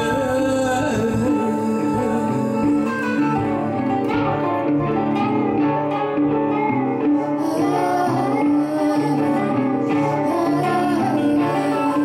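Live music: an electric guitar playing held, ringing notes together with a large frame drum struck with a beater.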